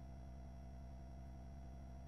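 Faint steady electrical hum with a thin steady tone above it: line noise on an otherwise soundless feed.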